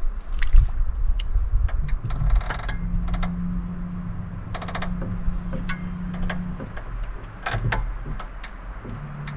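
A boat's electric trolling motor hums steadily for a few seconds in the middle and again near the end, under scattered clicks and rattles from a spinning reel and rod being handled.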